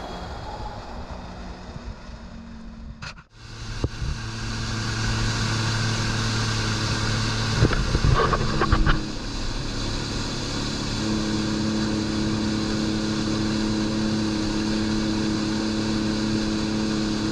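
Sea-Doo personal watercraft running across open water, a steady engine drone that settles to a different pitch about nine seconds in. A few short thumps come around eight seconds in, and the first three seconds are quieter.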